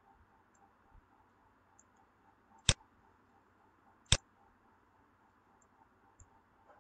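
Two sharp computer mouse clicks about a second and a half apart, over faint room hiss.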